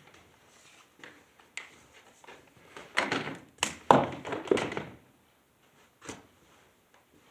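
Irregular knocks and clunks: a single one, then a quick cluster of several about three to five seconds in, and one more near six seconds.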